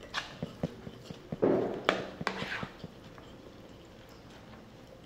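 Metal spoon clicking and scraping against a plate while scooping rice, with close-up mouth and chewing noises, in the first three seconds or so; after that it stays quiet.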